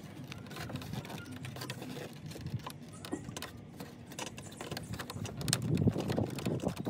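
An F30/F32 BMW's plastic kidney grille being worked by hand from behind, its slats and clips clicking and rattling in quick, irregular taps. The handling is busiest and loudest about five to six seconds in.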